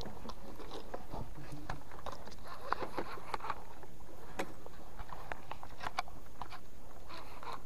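Irregular light clicks and taps, a few a second and varying in strength, over a faint steady hiss.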